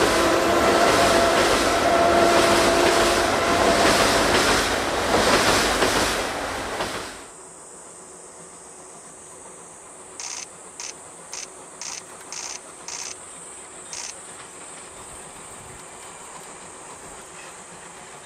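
C57-class steam locomotive working hard, its exhaust beats loud and rhythmic, with a long steady whistle over the first few seconds. The sound cuts off abruptly to a quiet distant hiss of the approaching locomotive, and in the middle of that comes a quick series of camera shutter clicks.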